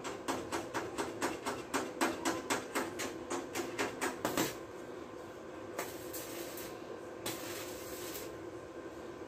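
Stick (coated-electrode) arc welding on thin truck-cab floor sheet: the arc crackles in short pulses about four times a second for the first four and a half seconds, then after a pause burns steadily with a hiss for about a second near the end. Thin sheet like this burns through easily under the electrode.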